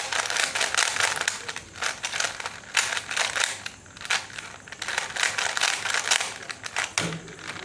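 Plastic layers of a 3x3 Rubik's cube clicking and clacking in quick, irregular turns as the cube is scrambled by hand.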